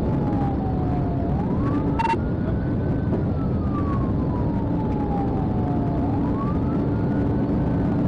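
Police car siren on a slow wail, its pitch rising quickly and falling slowly about every five seconds, over steady vehicle engine and road rumble. A short click and brief beep about two seconds in.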